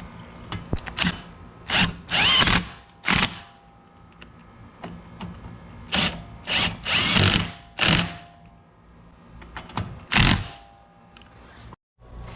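A handheld power tool run in short bursts, about eight of them, each lasting half a second to a second, with pauses between.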